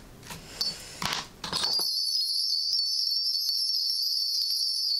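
A Korean shaman's hand-bell cluster (a bundle of small brass bells on a handle) shaken continuously in a steady, even jingle. It starts about a second and a half in, as she rings the bells during a divination reading.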